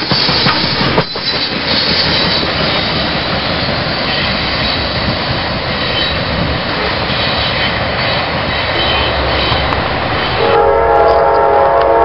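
Freight train noise: a dense rumble and rattle of cars rolling on the rails. About ten seconds in, a diesel locomotive's air horn starts sounding a chord of several tones and holds it.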